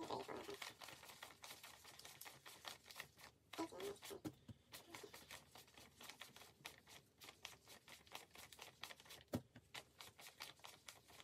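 Paper one-dollar bills being counted by hand, each note flicked off the stack: a fast, faint run of soft crisp paper ticks, several a second, with one sharper tick about nine seconds in.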